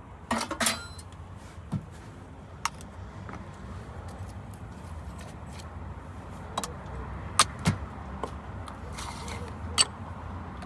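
Sharp clinks and knocks of a barista handling metal and ceramic coffee gear, a handful of separate strikes, over a steady low hum.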